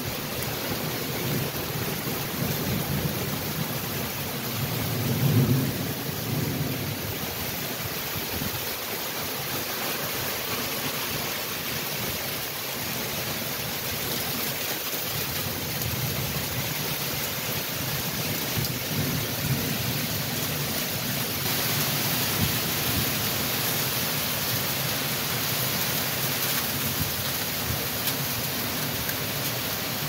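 Heavy thunderstorm rain pouring steadily as gusty wind tosses the trees, with a louder low rumble about five seconds in. The rain grows hissier about twenty seconds in.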